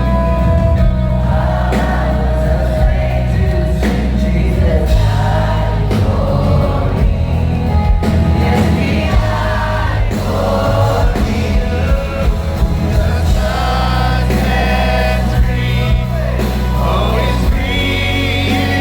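Live worship music: a band with heavy steady bass playing under several voices singing together.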